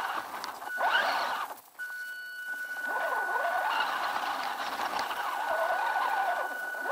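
Electric motor and gears of a WLtoys 10428 RC car whining as it drives over rough dirt, the pitch rising and falling with the throttle. Behind it runs a steady thin high whine, and the sound drops out briefly about a second and a half in.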